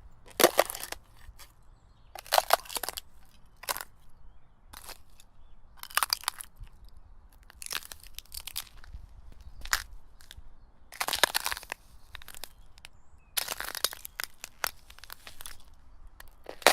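Footsteps breaking through the ice of frozen puddles, each step a short crunch and crackle of cracking ice. The steps come about every one to two seconds, some louder than others.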